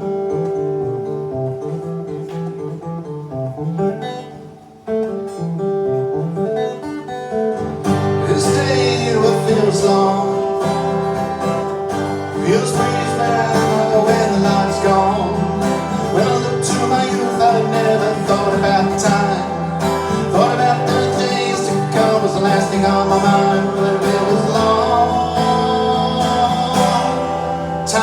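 Live acoustic guitar music, quieter at first and becoming fuller and louder about eight seconds in as a wavering melody line comes in on top.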